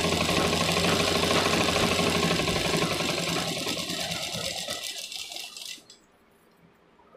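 A black-and-gold domestic sewing machine stitching a seam through cotton fabric, a steady rapid needle clatter that slows, fades and stops about six seconds in.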